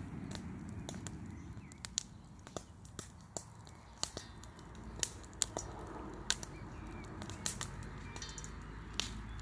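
Popcorn popping in a pan set in a wood bonfire, mixed with the fire's crackle: irregular sharp pops, one or two a second, growing more frequent and louder in the second half.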